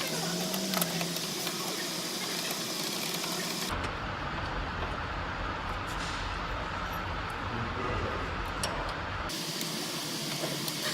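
Steady background hiss with a few faint clicks of small parts being handled. For about five seconds in the middle the hiss gives way to a duller low rumble.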